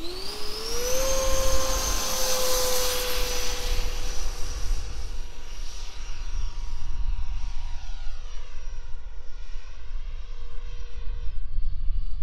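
Electric ducted fan of an AF-Model Albatross 105 mm EDF model jet spooling up with a rising whine, then holding a steady high whine at full power through the takeoff and climb. In the second half the whine fades and wavers as the jet flies away.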